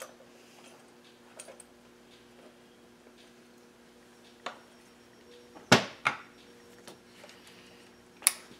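A few scattered clinks and knocks of tools and chainsaw parts being handled and set down on a workbench, with two sharp knocks close together about six seconds in and another near the end, over a faint steady hum.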